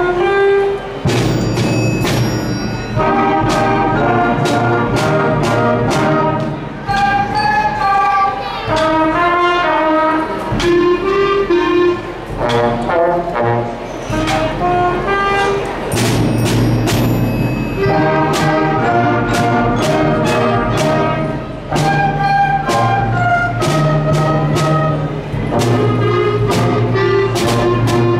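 School concert band of woodwinds and brass (flutes, clarinets, saxophones, trumpets and tuba) playing a lively piece in short, detached repeated notes over a sustained low bass line, with sharp taps marking the beat.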